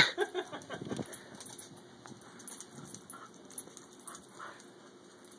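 English cocker spaniel snapping its jaws at soap bubbles: a sharp snap at the start, then a second of quicker snaps and short sounds, and after that only faint scattered ticks of its claws on concrete.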